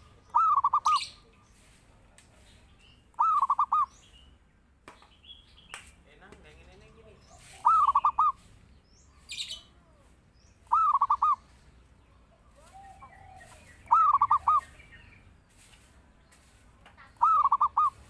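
Zebra dove (perkutut) singing: six short cooing phrases, each a quick run of about four rolling notes, repeated every three to four seconds.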